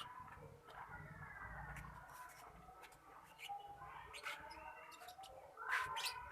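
Caged lovebirds chirping faintly, in short, scattered high calls, with a louder flurry of chirps near the end.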